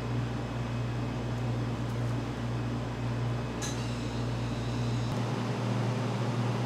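Steady low machine hum with hiss, like a fan or an appliance running. A short, light ringing clink comes about three and a half seconds in.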